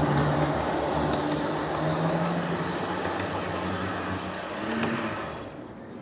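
Model trains running on the track: a steady electric-motor hum with a rumble of wheels on rail, loudest at first as one train passes close by, then fading away near the end.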